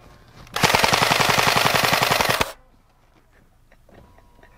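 Electric gel-ball blaster firing a full-auto burst of about two seconds, about ten shots a second.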